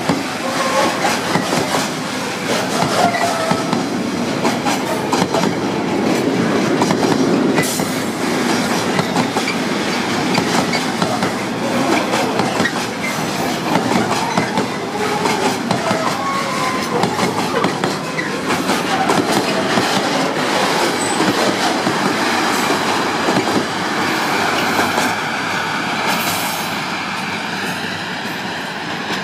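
Container wagons of a freight train rolling past close by, the wheels clattering steadily over the rail joints, with a thin wheel squeal near the end as the noise eases a little.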